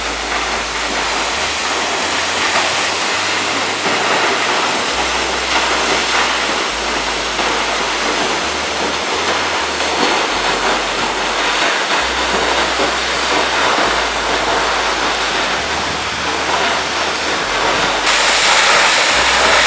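Waterfall crashing onto hard rock: a steady, dense rush of falling water, louder near the end.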